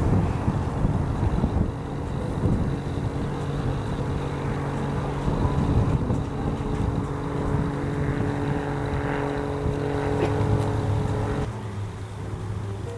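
Ultralight aircraft's engine and propeller droning steadily as the plane flies overhead, over a gusty low rumble of wind on the microphone. About eleven seconds in the sound changes abruptly and gets quieter.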